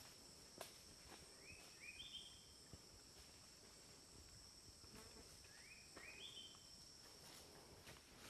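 Faint forest ambience: a steady high insect drone, and a bird calling twice about four seconds apart, each call a quick phrase of three upswept whistled notes, each higher than the last.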